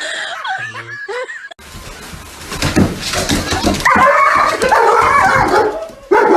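Laughter at first, then after an abrupt change a dog barking over background noise.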